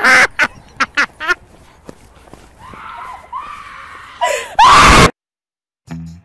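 A person shrieking and laughing in loud bursts, with quieter wavering cries in between. It cuts off suddenly about five seconds in, and a guitar tune starts near the end.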